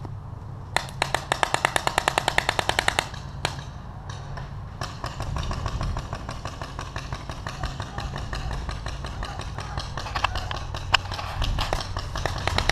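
Paintball marker firing a fast string of about twenty shots, some ten a second, starting about a second in and lasting about two seconds. Then a steady rush of noise with a few scattered single shots near the end.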